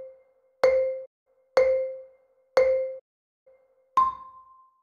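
Film countdown leader sound effect: a short struck tone about once a second, each one dying away quickly, and a final, higher tone that rings on longer.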